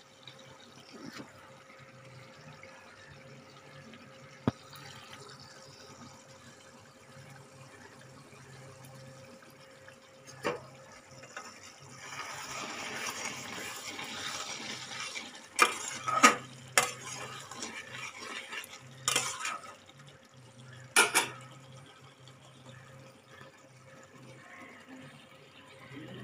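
A spatula stirring a thick prawn and vegetable curry in a steel pot: a wet stirring sound, then about five sharp knocks of the spatula against the pot, over a low steady hum.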